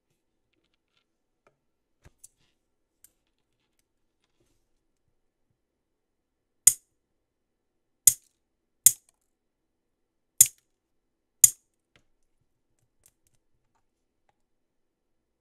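Steel nail clippers snipping through the tips of clear gel nail tip extensions to shorten them: five sharp snaps over about five seconds.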